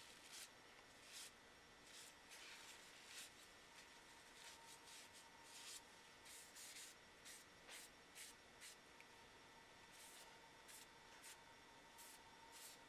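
A series of faint, short, irregular brushing strokes: a paper towel rubbing and dabbing wood stain onto wooden knife-handle scales.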